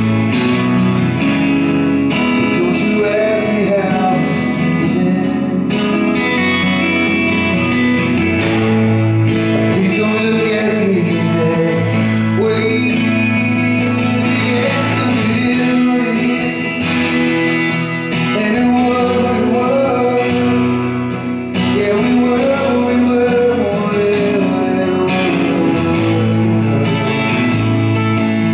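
Live song with a man singing over an electric guitar and an acoustic guitar playing together.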